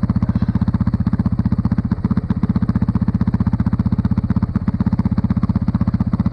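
Snowbike's dirt-bike engine idling with a steady, even putter.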